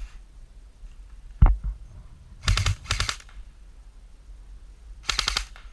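Airsoft electric gun fired in short full-auto bursts: two quick rattling bursts about two and a half seconds in, and another near the end. A single sharp knock about a second and a half in.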